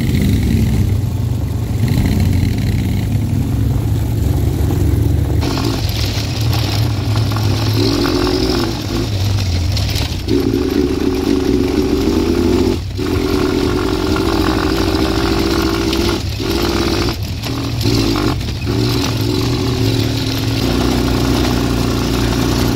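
Quad bike engine running under way, its pitch wavering with the throttle, with a few brief drops in the second half.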